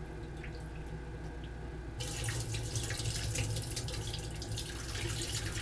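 Water starting to run and splash into a stainless steel kitchen sink about two seconds in, continuing steadily, while raisins are rinsed in a bowl.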